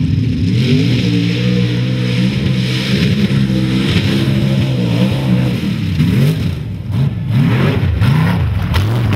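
Mud truck's engine running at high revs as the truck drives through a mud pit. It is held steady for about five seconds, then revved up and down several times in quick succession.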